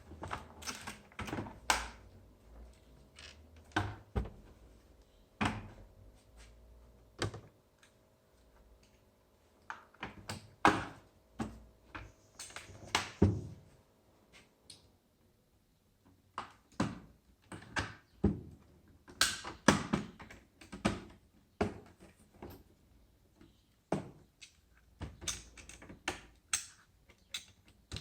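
Irregular clicks and knocks of a laptop's plastic casing and small parts being handled and worked on, some sharper than others. A faint steady hum stops about halfway through.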